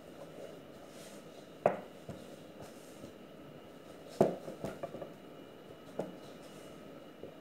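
Spatula stirring shaggy pizza dough in a stainless steel mixing bowl, knocking sharply against the metal bowl a few times, loudest about four seconds in.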